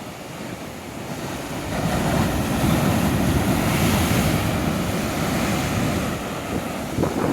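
Ocean surf: the noise of breaking waves swells about two seconds in and slowly eases, with wind buffeting the microphone.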